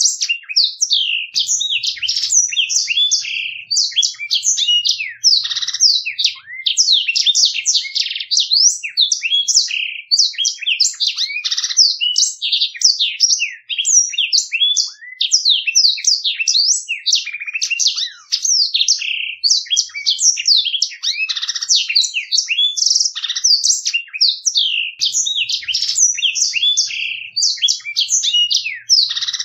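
Blackthroat (black-throated canary) singing an unbroken, fast run of high twittering notes and trills with hardly a pause: the continuous rolling ('ngeroll') song kept by bird keepers for training other songbirds.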